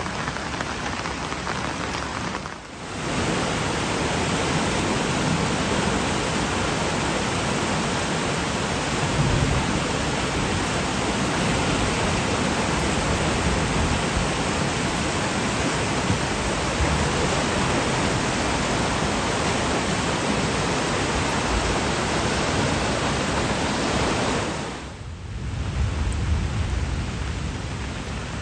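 Swollen, muddy floodwater rushing and churning down a stream channel, a steady loud roar of water that dips briefly twice, about three seconds in and near the end.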